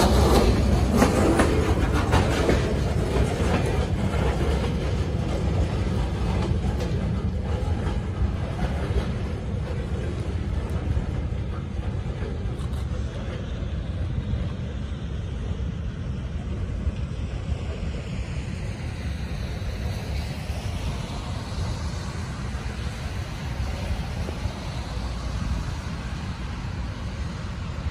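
Freight train of boxcars rolling past close by, the wheels clicking over the rail joints, then fading as the train draws away and leaving a steady low rumble and hiss.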